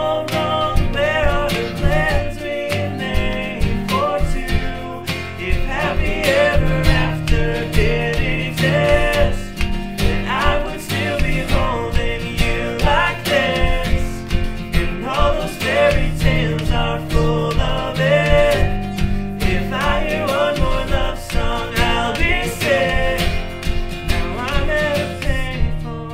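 Pop song cover played on acoustic guitar, with a steady beat tapped out on household objects such as Tupperware, under a bending melody line.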